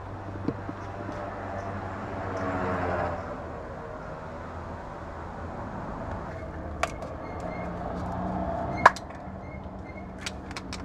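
A passing vehicle, its sound swelling and fading over about two seconds, then a few sharp clicks, one much louder near the end.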